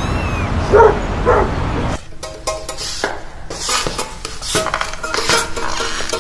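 Steady background street noise with a dog barking twice about a second in; after a sudden change at about two seconds, scattered knocks and clicks with a few faint single notes.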